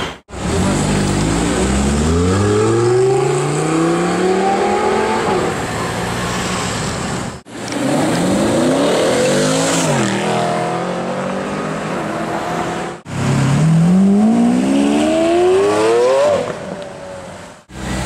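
A run of separate supercar clips, each with an engine accelerating hard and its pitch climbing steeply. In the middle clip a Mercedes-Benz SLS AMG's V8 pulls away, its pitch dropping briefly and then climbing again.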